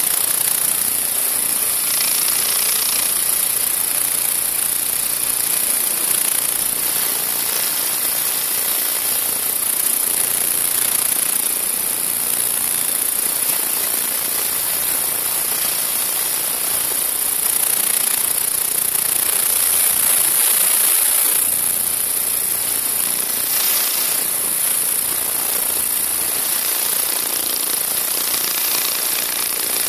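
Ultrasonic vibrating sieve machine running: a steady rattling machine noise with a constant high-pitched hiss on top.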